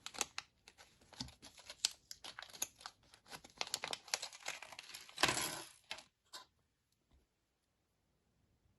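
Plastic packaging crinkling with many small clicks as a bag of minifigure parts is handled, with a louder tearing rustle about five seconds in; it stops about six seconds in.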